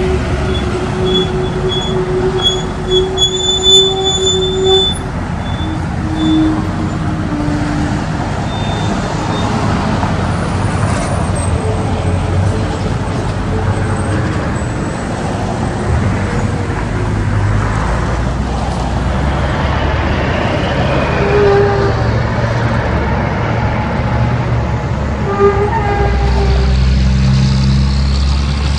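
Heavy semi trucks and road traffic passing, a steady low diesel engine rumble with tyre and road noise. A long steady tone sounds for the first five seconds, and the engine sound grows louder near the end as a truck comes close.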